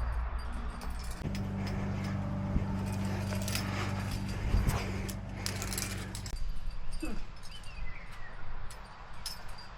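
Metal climbing gear (carabiners and quickdraws on a harness) clinking and jingling in scattered short clinks as the climber moves, over a low steady hum that starts about a second in and stops after about five seconds.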